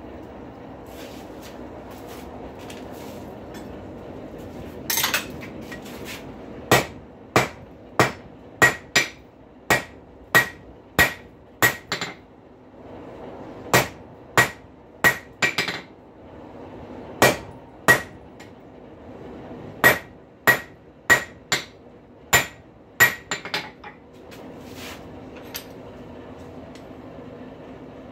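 Hand hammer striking a hot steel rail spike on an anvil, flattening its head: about two dozen sharp blows in quick groups with short pauses between, each with a brief metallic ring, over a steady hum.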